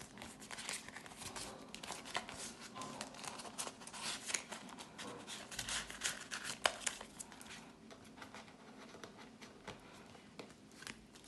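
Crinkling and rustling of a clear plastic cash envelope and folded paper banknotes being handled, with many small crackles that thin out over the last few seconds.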